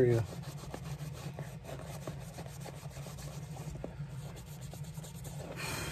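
A cloth rag rubbing and scrubbing the leather upper of a shoe to clean off dirt: a soft, scratchy wiping with many small ticks, over a steady low hum.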